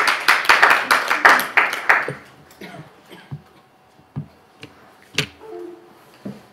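A few people clapping for about two seconds, then a handful of scattered clicks and knocks.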